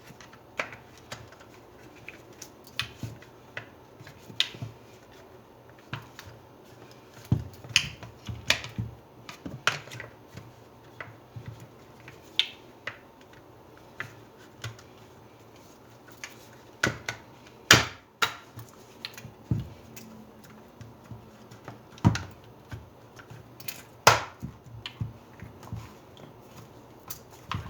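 Irregular sharp clicks and knocks of hard plastic and metal parts and tools being handled while a hammer drill is put back together, with two louder knocks about 18 and 24 seconds in.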